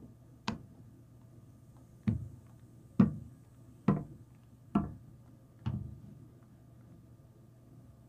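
Six taps of a small plastic Littlest Pet Shop figurine set down on a cloth-covered surface as it is walked along, standing in for footsteps. The taps come about a second apart, and the first one is lighter.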